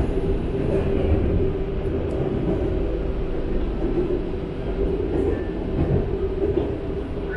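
Shanghai Metro train running at speed, heard from inside the carriage: a steady rumble with a hum.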